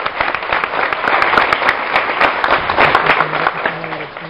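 A crowd applauding, many hands clapping at once, dying away near the end.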